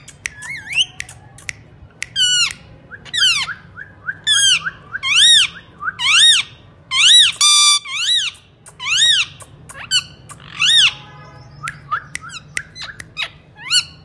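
Indian ringneck parakeet calling repeatedly: a run of short, shrill squawks, about one a second, each rising and falling in pitch, with some steeply falling calls in the first few seconds.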